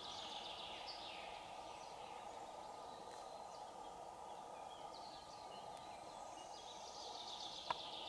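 Songbirds singing: repeated high, descending trilled phrases, each lasting a second or two, over a faint steady background hiss.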